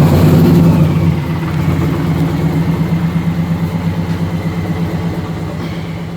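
Indian Challenger motorcycle's liquid-cooled V-twin engine idling just after start-up, loudest in the first second and slowly dropping back over the following seconds.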